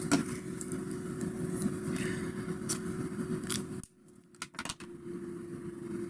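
A few light clicks and taps of plastic marker barrels being picked up and set down, over a steady low hum of room noise that cuts out briefly about four seconds in.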